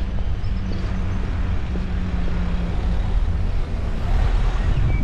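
Wind rumbling on a GoPro's microphone while riding a bicycle, over steady city traffic. A low engine hum runs through the first part and fades out a little past halfway.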